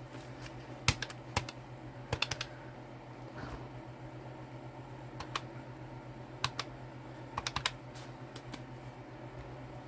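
Key presses on a round-keyed plastic calculator: scattered sharp clicks and quick runs of three or four taps, over a steady low hum.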